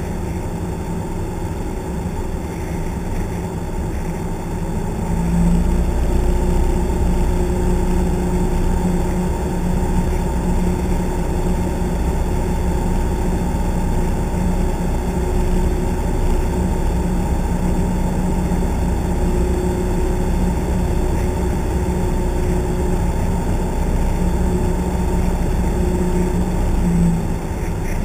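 Piston engine and propeller of a single-engine light plane, heard from inside the cabin as a steady drone. It grows louder about five seconds in and eases back near the end as power is changed.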